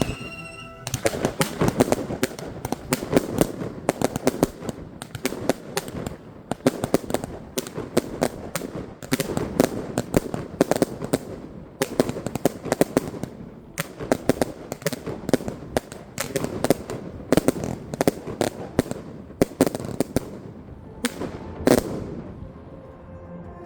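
Consumer firework batteries, a Funke Scala S25-B and two Argento Color Thunder cakes, firing a rapid run of shots: dense bangs and crackling, several a second. It thins to a few separate, louder bangs near the end.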